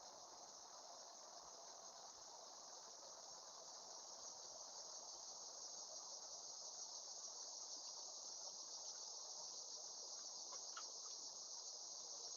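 Steady high-pitched chorus of summer night insects, crickets or similar, trilling without a break, with a few faint short chirps near the end.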